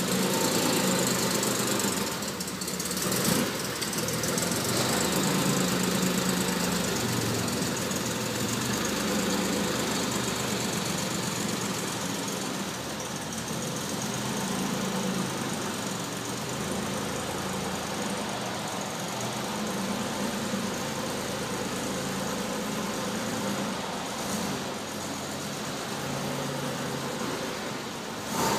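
A 1956 Aston Martin DB2/4's straight-six engine running steadily at low revs as the car drives slowly off.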